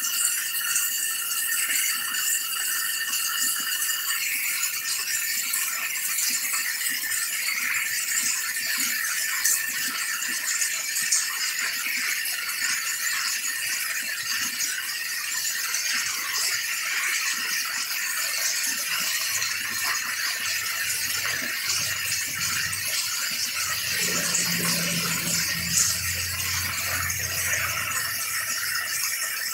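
Heavy rain pouring onto tree leaves, a steady hissing patter. A low rumble builds and fades over the last ten seconds or so.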